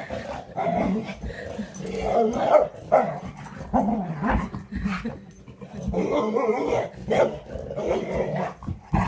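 Two dogs growling and barking at each other in play, in irregular bursts of half a second to a second.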